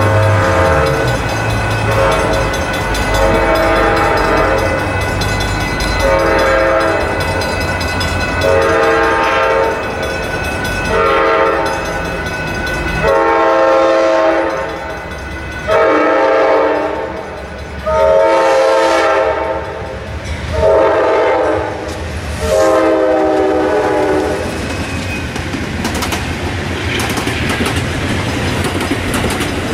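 Amtrak passenger train's diesel locomotive horn sounding a long series of chord blasts, about a dozen, the later ones held longer. Then the train's bilevel Superliner cars run past, with wheels clattering over the rail joints.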